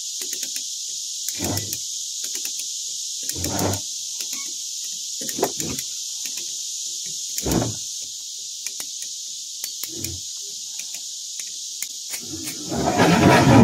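A shed floor being winched across the ground with a come-along: a short creak or knock about every two seconds as the floor is pulled, then a longer, louder grinding rumble near the end as it slides. A steady high insect drone runs underneath.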